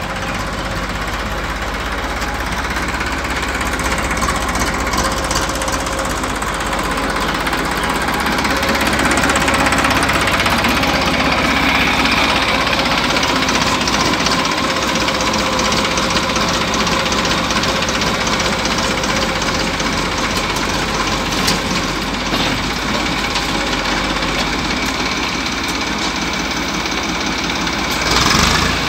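Tractor's diesel engine running steadily while it powers the hydraulic lift of a rear-mounted loader raising a full bucket, a little louder from about a third of the way in. A short, louder rush of noise comes near the end.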